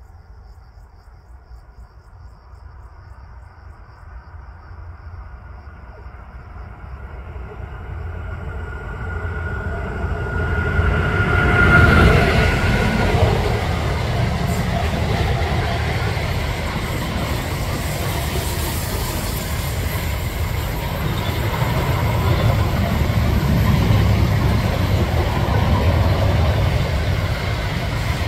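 Electric train approaching, its noise building over about ten seconds, with a high steady tone swelling as it arrives, then passing close by with a steady loud rush of wheels on rails that lasts more than fifteen seconds.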